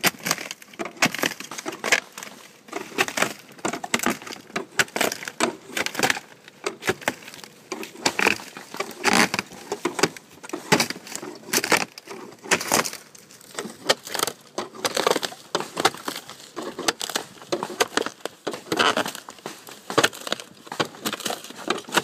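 Old wood shakes and black roofing felt being pried up and rolled off a plywood roof deck with a long-handled tear-off tool: irregular cracking and splintering of the shakes with scraping and crackling all the way through.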